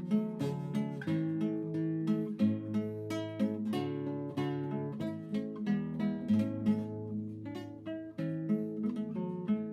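Acoustic guitar music: a steady run of plucked notes over a moving bass line.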